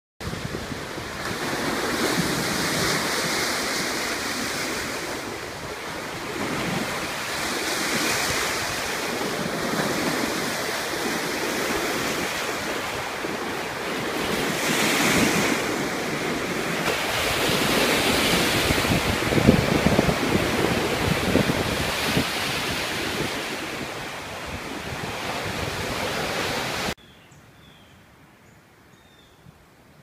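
Lake Erie waves washing and breaking on the shore, the surf rising and falling every few seconds, with wind on the microphone. It cuts off suddenly near the end, leaving a quiet woodland background with a few faint bird chirps.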